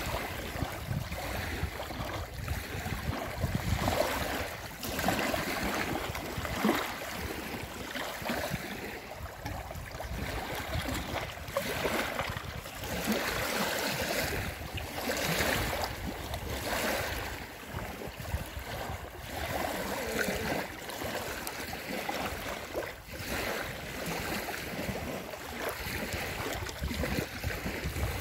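Small lake waves lapping and splashing onto a paved slipway at the shoreline, each wash swelling and fading every couple of seconds.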